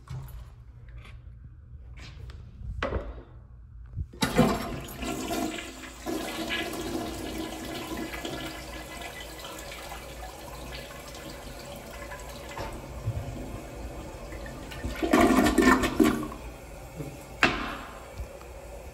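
Commercial flushometer toilet flushing: a sudden rush of water about four seconds in, then water swirling in the bowl, with a louder surge around fifteen seconds in and a single sharp knock shortly after.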